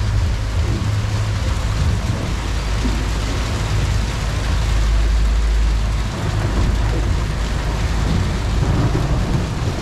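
Hail and rain falling on an aluminum boat's cabin and the water around it, an even hiss over the steady low hum of twin outboard motors running under way.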